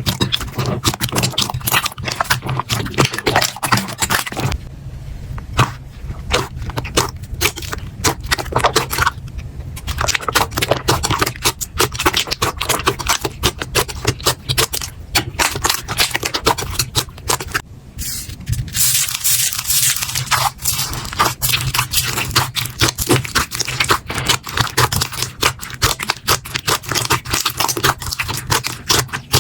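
Slime being worked by hand, giving a dense, continuous crackling and popping of small clicks, with a few brief lulls.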